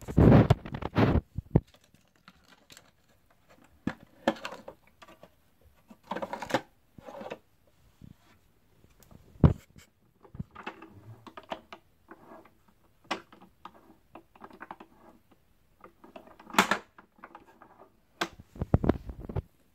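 Irregular clicks, knocks and short rustles from handling a Sizzix Fold Away die-cutting machine and its packaging, with a louder clatter right at the start and again near the end.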